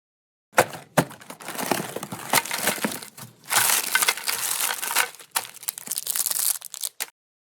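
Meat grinder crushing and grinding sweets: two sharp cracks about half a second and a second in, then continuous crunching that stops shortly before the end.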